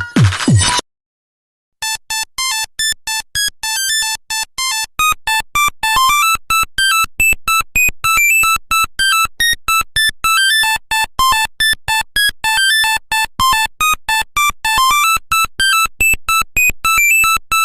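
A mobile phone ringtone playing a fast electronic melody of short, clipped beeping notes, about five a second, starting about two seconds in. Before it, electronic drum-beat music cuts off just under a second in, followed by a second of silence.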